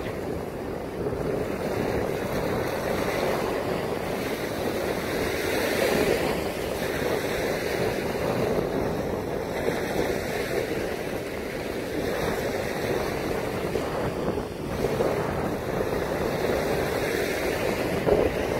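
Lake Michigan waves washing up on a pebbly beach, a steady rushing that swells now and then, with wind buffeting the microphone.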